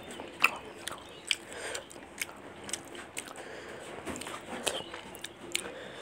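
A person chewing food, with irregular sharp mouth clicks and smacks.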